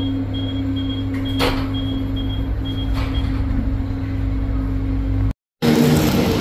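Scania K230UB bus's diesel engine idling steadily, heard from inside, with a door-warning beeper sounding a short high beep about two to three times a second for the first three seconds. After about five seconds the sound cuts out for a moment and comes back louder.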